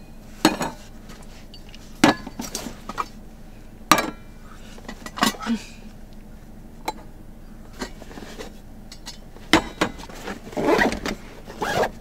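Camping gear being handled on a small table: sharp clicks, knocks and clinks of cases, metal cups and canisters, a second or two apart, with a busier stretch of handling and rustling near the end.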